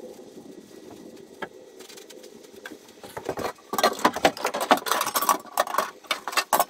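Objects clattering and rattling as someone rummages through a plastic storage tote, loud and busy from about four seconds in, after a low steady hum.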